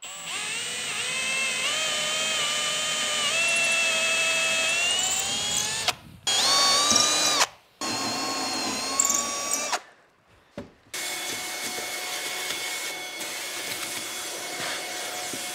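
Cordless drill boring fixing holes through a plywood tabletop in three runs, its motor whine shifting in pitch, each run stopping abruptly. Then a shop vacuum runs steadily for the last few seconds.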